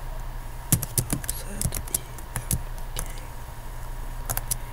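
Typing on a computer keyboard: short runs of key clicks with pauses between, about a second in, around two seconds in and again near the end.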